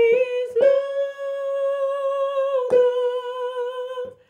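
A woman singing a hymn harmony line unaccompanied, holding three long notes with a light vibrato, the middle one lasting about two seconds.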